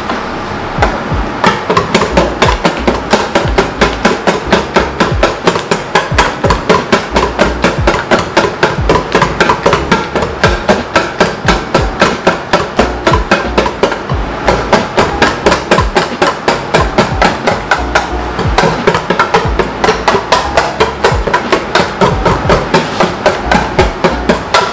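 Cake batter of eggs, butter and condensed milk being beaten by hand in a bowl, the utensil striking the bowl in a fast, steady rhythm of about four strokes a second.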